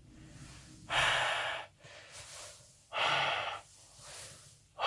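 A man breathing out hard through a cloth balaclava: two long, forceful exhales about two seconds apart, with fainter inhales between and a third exhale starting at the very end. The breaths are forced on purpose to push warm air up under the goggles and fog them.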